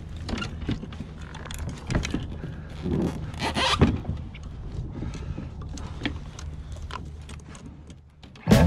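Irregular clicks, knocks and rustling from handling a freshly landed sheepshead and fishing gear aboard a plastic kayak, over a low steady hum. Music starts right at the end.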